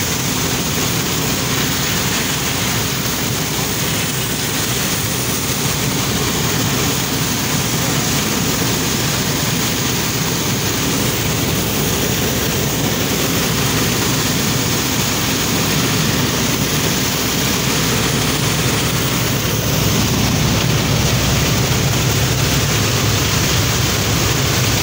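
Combine harvester running steadily while it cuts and threshes a standing grain crop: a constant engine and machinery din, slightly louder near the end.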